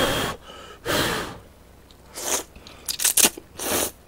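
A person slurping instant ramen noodles close to the microphone: about five short, noisy sucking pulls in four seconds, with chewing between them.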